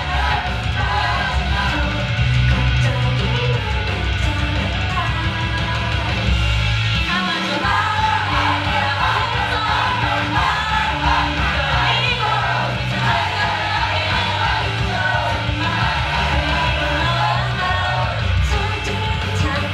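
Live idol pop song played loud over a venue sound system, with singing and a steady, heavy bass line. The bass drops out briefly about seven seconds in.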